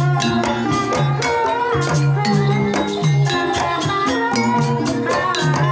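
Banyumasan gamelan playing a tayub gending. Kendang hand drums beat a busy pattern of sharp strokes over a repeating low melody of pitched percussion.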